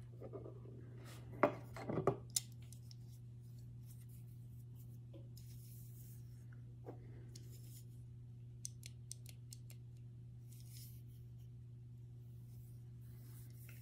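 Small steel pistol parts clicking and clinking as they are handled on a bench, with a cluster of sharp clicks in the first couple of seconds and a few lighter ticks later, over a steady low hum.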